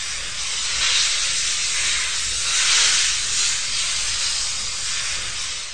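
A loud, steady hiss with no pitch, like rushing steam or spray. It starts abruptly, swells slightly in the middle and fades out at the end.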